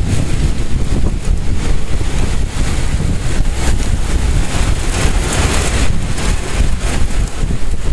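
Severe thunderstorm wind gusting with heavy rain, the wind buffeting the microphone with a steady low rumble.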